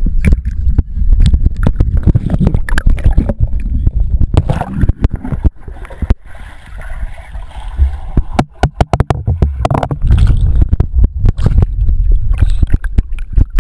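Pool water sloshing and splashing against a waterproof action camera's housing, a heavy low rumble broken by many sharp knocks. About six seconds in, as the camera goes under, it turns quieter and muffled for a couple of seconds before the rumble and knocks return.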